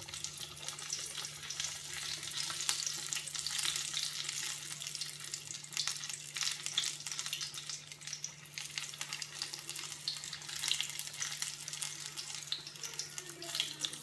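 Gram-flour-battered cauliflower pakoras deep-frying in hot oil in a kadhai, a steady crackling sizzle. This is their first, partial fry.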